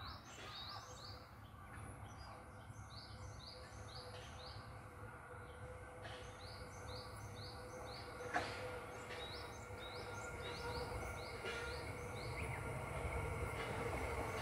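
Birds calling in repeated short runs of falling chirps over a low rumble and hum that grow slowly louder as a Joban Line E531-series electric train approaches at a crawl. One sharp knock about eight seconds in.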